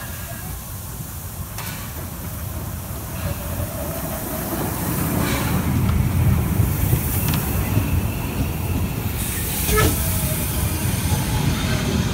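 Narrow-gauge steam train with its 1932-built locomotive running slowly into the station, its carriages rolling close past with a rumble that grows louder as it nears. A faint wheel squeal comes twice, and steam hisses in the second half.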